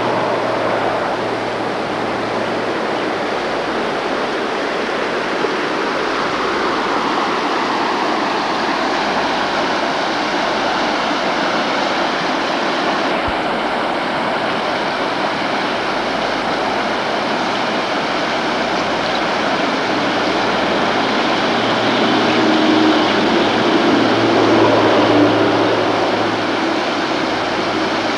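Shallow river rushing over rocks and riffles: a steady roar of running water. A low hum swells briefly near the end.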